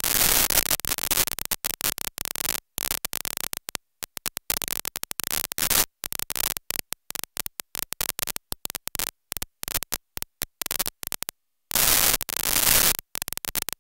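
Harsh static, cut into many short pieces by sudden dropouts to silence, as in a glitching recording; the loudest stretches come at the start and again near the end.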